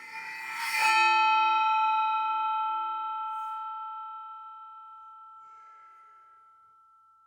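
A resonant piece of metal ringing with several steady overtones. The ring swells in with a scraping, noisy attack over about the first second, then fades slowly over the next six seconds.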